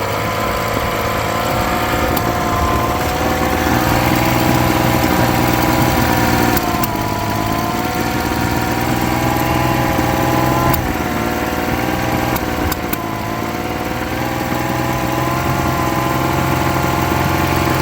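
Honda BF25 25 hp four-stroke outboard running at a steady fast idle, its speed wavering slightly. The carburettors are freshly rebuilt and the idle and carb balance not yet tuned.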